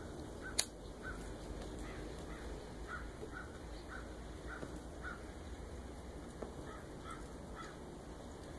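A disposable lighter clicks once about half a second in, then a corn cob pipe is puffed on while being lit: a steady run of short, soft puffs, about two a second.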